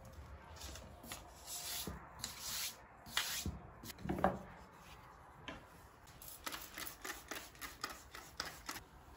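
Household items being rubbed and handled during cleaning: a few swishing wipes, a short squeak about four seconds in, then a quick run of light clicks and taps.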